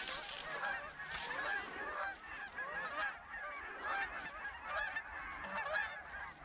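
A flock of geese honking: many short calls overlapping continuously as the birds come in toward the decoys.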